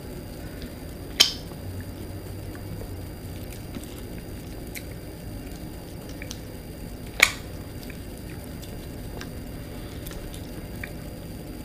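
Close-up eating of boiled shellfish: small wet squishing and clicking as shells are handled and picked apart. There are two sharp, loud clicks, about a second in and about seven seconds in.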